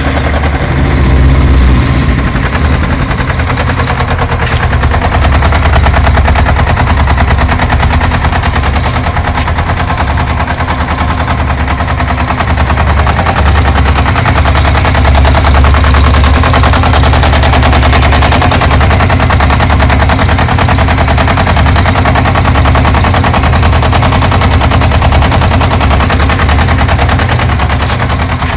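Yamaha XJ600 Diversion's air-cooled inline-four engine running just after starting, with a rapid, regular knocking clatter from inside the engine. The owner cannot tell what is causing it.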